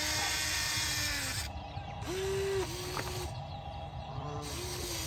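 Small electric gear motors of a radio-controlled toy excavator whirring in three stop-start bursts as its arm and bucket move, lifting a toy truck.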